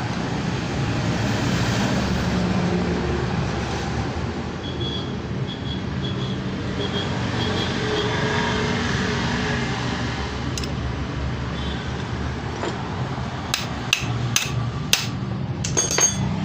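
Steady road-traffic noise, with a run of sharp metallic taps and clicks from tools working on a motorcycle disc-brake caliper in the last few seconds, about six in three seconds.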